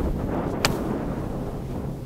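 A gap wedge striking a golf ball off fairway turf: one sharp click about two-thirds of a second in, over wind noise on the microphone.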